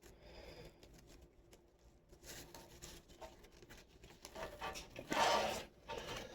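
Nylon straps and plastic buckles of a chest rig being handled and adjusted: soft rustling with small clicks, and a louder rustle of fabric about five seconds in.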